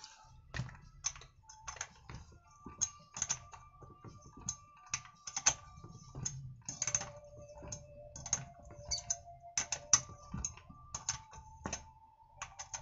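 Irregular light metallic clicks and clinks of a socket wrench and the chainsaw's flywheel (magneto) nut as the freed nut is spun off the crankshaft and the saw is shifted on the workbench.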